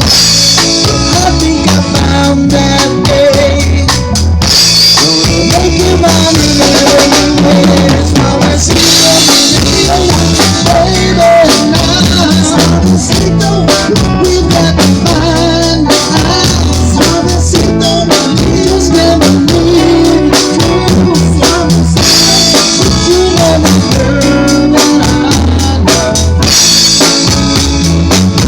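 Live band playing loudly: a drum kit with snare and bass drum keeping a steady beat over a moving bass line, with cymbal washes every few seconds.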